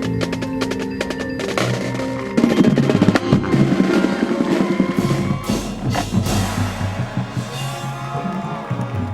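High school marching band playing: held chords over rapid clicking percussion, then about two and a half seconds in the full band and drumline come in louder, with snare and bass drums.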